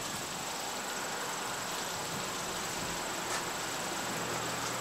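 Steady outdoor background hiss with a thin, continuous high-pitched whine and a faint tick about three seconds in.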